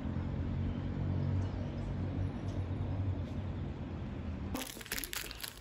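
Steady low rumble of distant city traffic with a light hiss over it. About four and a half seconds in it cuts off suddenly, and a few sharp clicks and rustles follow.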